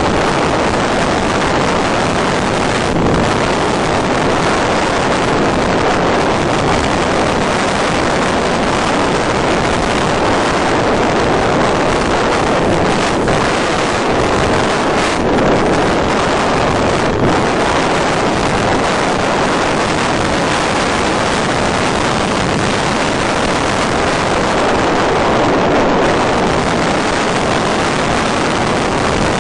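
Steady rush of wind noise over the onboard microphone of an FPV model plane in gliding flight, with no motor sound: the motor is drawing almost no current.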